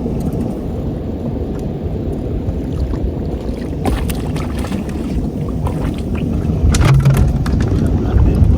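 Steady low rumble of a fishing boat at sea, with a few sharp knocks about four seconds in and again near seven seconds.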